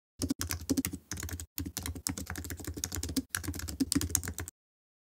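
Computer keyboard typing: a fast run of key clicks that starts a moment in, breaks off briefly a few times, and stops shortly before the end.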